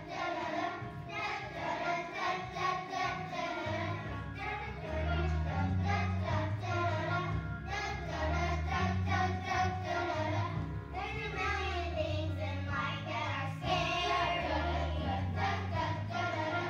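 A group of second-grade children singing together in unison to a musical accompaniment, with a bass line coming in about four seconds in.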